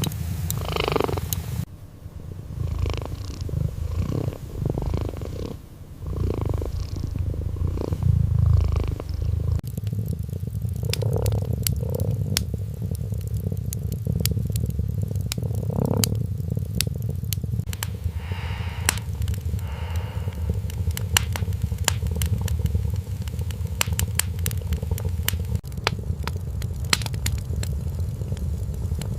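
Kitten purring in a steady low rumble, with scattered sharp crackles joining in from about a third of the way through.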